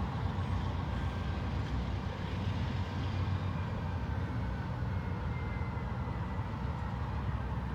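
Diesel-hauled freight train of iron-ore cars being pushed along the track: a steady low rumble.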